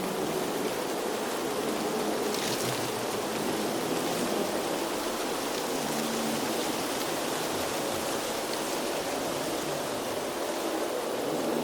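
Steady outdoor nature ambience: an even rushing noise with no pauses, and a brief brighter hiss about two and a half seconds in.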